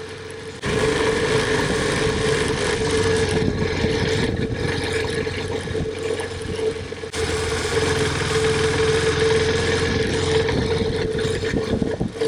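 KTM 390 Adventure's single-cylinder engine running under way on a dirt trail, with wind and riding noise over it. It gets suddenly louder about half a second in.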